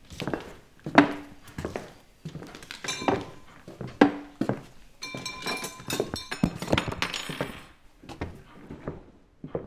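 Dishes, glasses and cutlery clinking and knocking as a dinner table is cleared, with thumps and footsteps; the clatter thickens into a ringing jumble about five seconds in.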